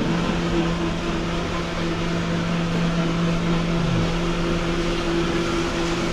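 A machine's steady hum switches on and holds one even pitch for about six seconds, over a broad hiss of background noise, with a brief falling tone about four seconds in.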